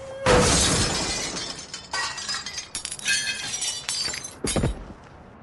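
Glass shattering: a loud crash about a quarter second in, then several shorter crashes with a tinkling ring over the next few seconds.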